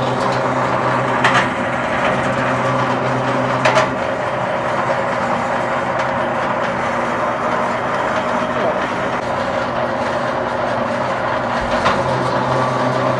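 Electric automatic wire stripper machine running steadily as wire is fed through its rollers and blade, with a few sharp knocks about a second in, near four seconds and near twelve seconds.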